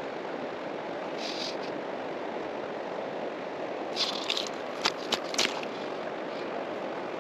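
Steady rush of flowing creek water, with a few short scrapes and clicks between about four and five and a half seconds in.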